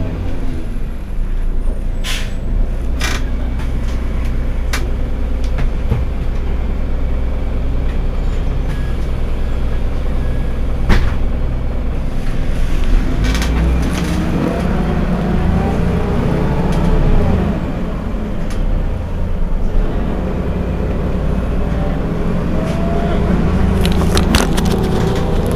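Heuliez GX 127 city bus's diesel engine idling at a stop, a steady low rumble whose pitch rises and then falls again midway through. Several sharp clicks or knocks come over it.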